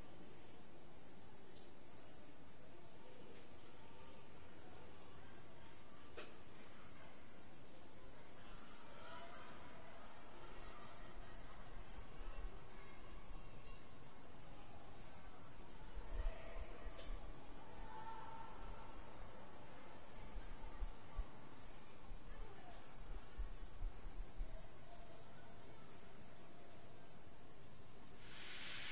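Crickets chirring in a dense, steady, high-pitched chorus. A faint low rumble comes and goes in the middle.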